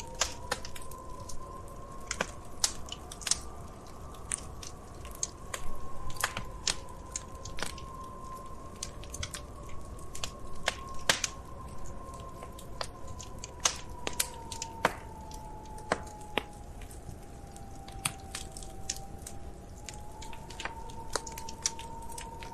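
Wood fire crackling in a fireplace: irregular sharp pops and snaps, some close together, over a steady low rush. A faint, slowly wavering tone hums underneath.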